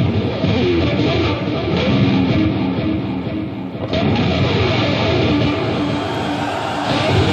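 Heavy metal electric guitar solo played live, with many string bends gliding up and down in pitch.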